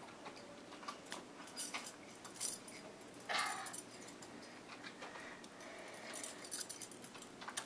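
Steel handcuffs clicking and rattling in irregular small metallic clicks while they are worked open behind the back, with a denser run of clicks near the end.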